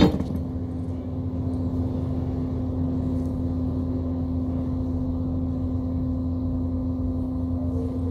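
Steady low mechanical hum with a constant droning tone, unchanging throughout, from an unseen motor or appliance.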